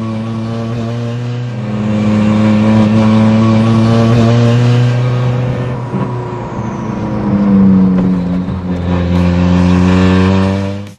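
Tuned 350 bhp Alfa Romeo 4C 1.75 TBI turbocharged four-cylinder engine in an Abarth 595 running on the move. It gives a loud, fairly steady engine note whose pitch shifts slightly up and down.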